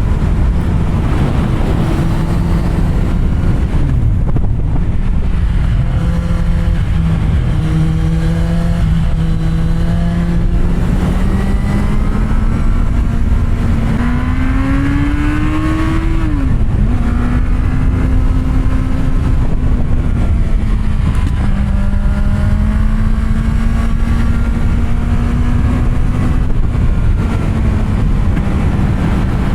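Kawasaki Z750R's inline-four running through an SC Project exhaust with its dB killer fitted, at low, steady revs. The revs climb gradually to about halfway through, drop suddenly with an upshift, then hold steady again.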